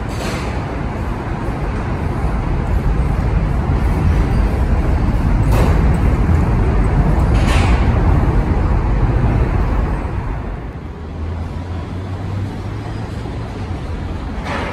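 New York City subway train running on elevated steel track with a steady rumble of wheels on rail. It builds, then eases off about ten seconds in, and two brief sharp screeches or hisses cut through it about five and a half and seven and a half seconds in.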